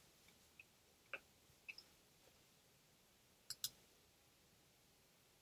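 Computer mouse clicking: a few faint ticks, then a sharp double click about three and a half seconds in.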